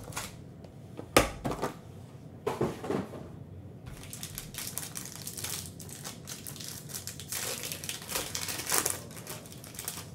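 Foil wrapper of a Panini Prizm Draft Picks trading-card pack crinkling and tearing as it is handled and opened. There are a few sharp knocks about one and two and a half seconds in, then a long stretch of dense crinkling.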